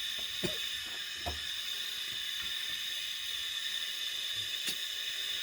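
Steady hiss of a gas camp stove burner heating a pot of rice, with a few light knocks of utensils or cookware.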